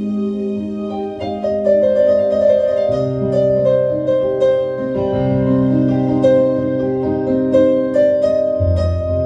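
Solo piano improvisation: sustained chords under quick repeated notes higher up, with a low bass note coming in about three seconds in and again near the end.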